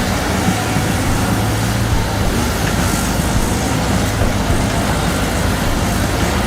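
A heavy machine's diesel engine running steadily, with a low hum under a noisy mechanical clatter.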